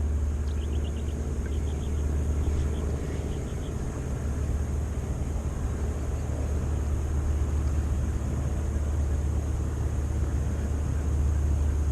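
A steady low engine drone, with a few faint light ticks in the first few seconds.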